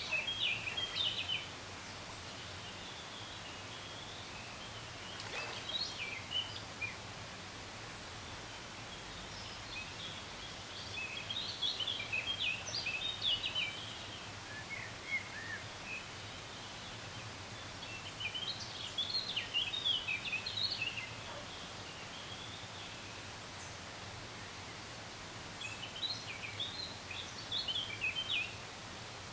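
A songbird singing short phrases of quick, high chirping notes, about six phrases a few seconds apart, over a steady faint outdoor background noise.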